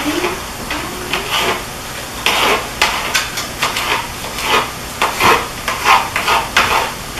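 Kitchen knife chopping green bell pepper on a cutting board, in uneven strokes about two a second.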